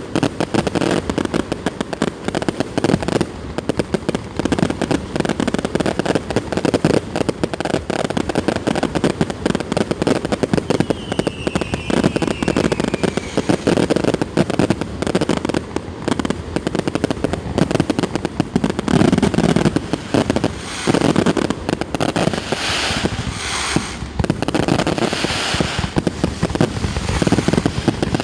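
Aerial fireworks going off without a break: many shells bursting at once in dense, rapid bangs and crackling. A short falling whistle comes about a third of the way in.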